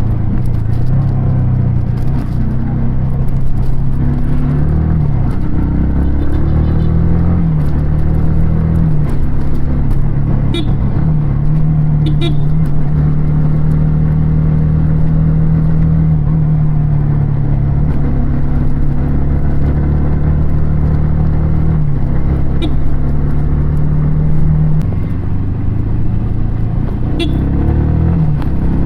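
Yamaha R15 V3 motorcycle's 155 cc single-cylinder engine and exhaust under way, the revs climbing and dropping repeatedly through gear changes. The note holds steady for several seconds in the middle, then falls away near the end, with a few short clicks along the way.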